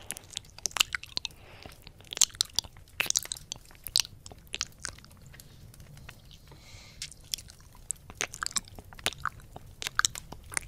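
ASMR ear-eating mouth sounds into the silicone ears of a 3Dio binaural microphone: licking, smacking and nibbling heard as an irregular run of sharp wet clicks and pops, thinning out briefly in the middle.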